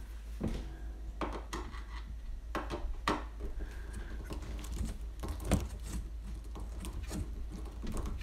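Hand screwdriver driving a screw through a dishwasher's metal mounting bracket into the underside of a countertop: irregular small clicks and scrapes as the screw is turned.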